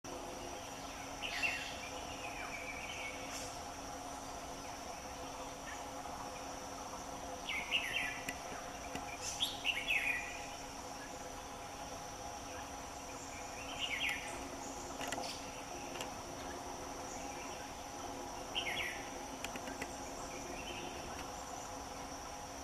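Forest ambience: a steady, high-pitched insect chorus, with a short bird call breaking in about five times.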